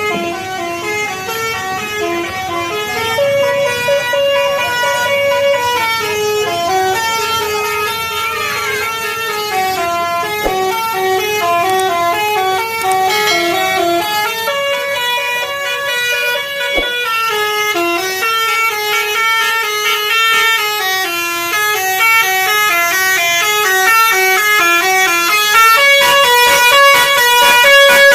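Basuri telolet multi-tone bus horn playing a fast tune, note after note without pause, getting louder toward the end.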